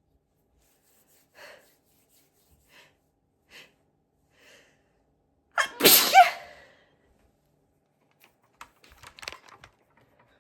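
A loud, high-pitched "apchhee" sneeze about six seconds in, led up to by a few faint short breaths. A few light clicks follow near the end.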